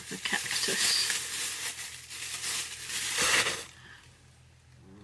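Packaging crinkling and rustling as an item is handled and unwrapped, stopping about three and a half seconds in.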